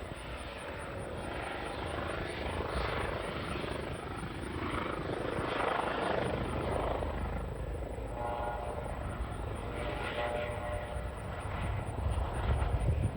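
Helicopter running, a steady rotor and engine noise with a faint whining tone that comes in briefly past the middle.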